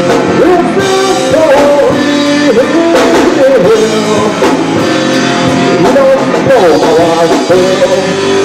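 Rock band playing live: electric guitar with drums, the melody bending up and down in pitch.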